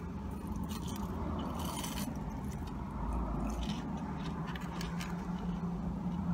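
Close-up crunching and chewing of fried onion rings, with a few crisp crunches about two, four and five seconds in, over a low steady hum.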